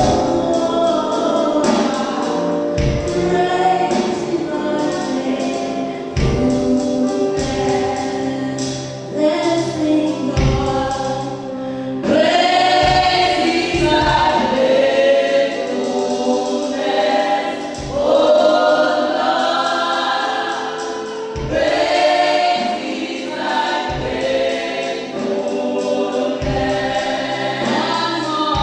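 A church choir singing gospel music with accompaniment, with a low drum beat about every second and a half.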